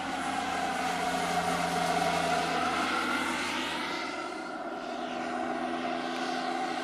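Scale RC turbine helicopter in flight: the steady whine of its small gas turbine and rotors. The pitch sags and recovers as it passes, and it is loudest about two seconds in, fading a little midway before it swells again.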